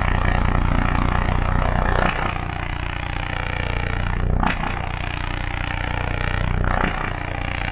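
A loud, steady low drone with a rough, engine-like rattle to it, broken by short sharp hits about two, four and a half and seven seconds in.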